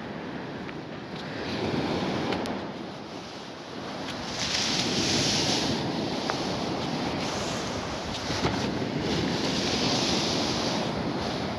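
Sea water washing and splashing in swells, with wind buffeting the microphone; the wash surges louder three times.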